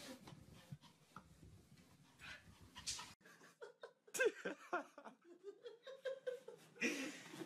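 Dog vocalising: short whines and grumbles that waver in pitch, starting about four seconds in and coming again near the end, over faint noise before that.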